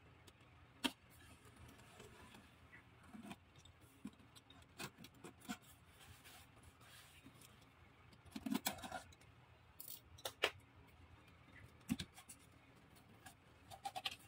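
Diecast toy car packaging being handled and opened: scattered sharp clicks and taps with short bits of rustling, the sharpest clicks about a second in and again around ten and twelve seconds in.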